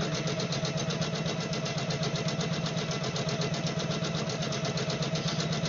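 Computerized embroidery machine stitching at speed: a steady motor hum with a rapid, even rhythm of needle strokes.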